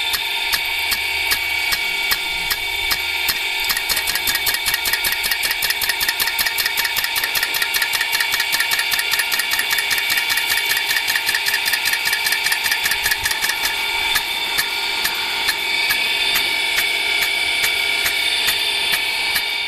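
2-inch impact-type rain gun sprinkler running at full pressure: its swinging impact arm clacks against the nozzle in a steady ticking over the hiss of the water jet. The ticking speeds up to a rapid rattle about four seconds in, then slows again near the end.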